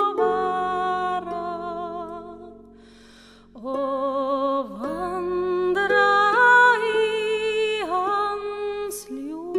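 A woman singing a slow Norwegian folk hymn tune in long held notes with vibrato, over harp accompaniment. One phrase fades out about two and a half seconds in, and after a breath the next phrase starts about a second later.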